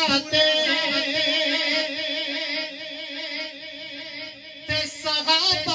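A man singing a naat into a microphone, holding long wavering notes. One phrase fades and a new one starts strongly about three-quarters of the way through.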